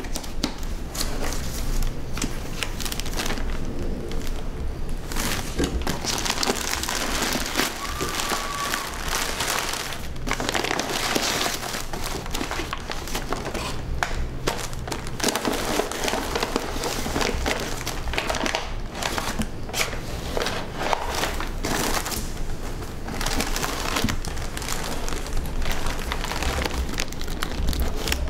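Meal-kit packaging handled and unpacked: a cardboard box opened and paper bags and plastic wrap crinkling and rustling, with many sharp crackles.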